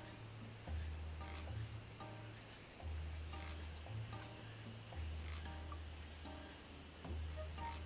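A continuous high, steady chorus of crickets, with quiet background music carrying a slow bass line that changes about once a second.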